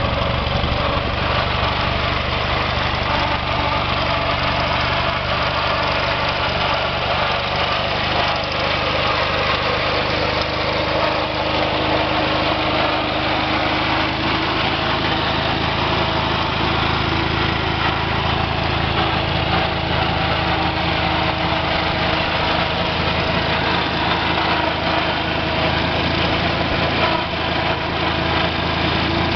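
1938 Viking Standard Twin garden tractor's two-cylinder engine running steadily, driving the cart along in low range.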